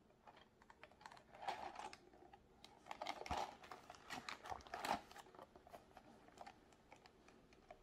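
A small cardboard LEGO set box being handled and turned over in the hands: soft scrapes, rustles and light finger taps on the cardboard, coming in a few clusters, loudest about a second and a half in, around three seconds and around five seconds.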